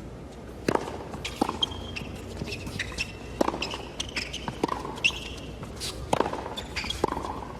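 Tennis rally at court level: a tennis ball popping off racket strings and bouncing on the court, about one sharp impact every second, with short squeaks from players' shoes in between.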